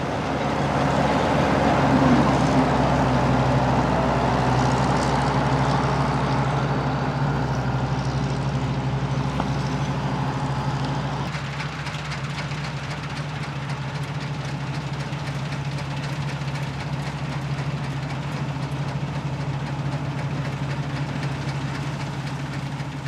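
Fortschritt E514 combine harvester working: the steady drone of its four-cylinder diesel under a dense mechanical wash from the threshing and straw-handling gear. It is loudest in the first few seconds and eases off, with a clear drop about halfway through.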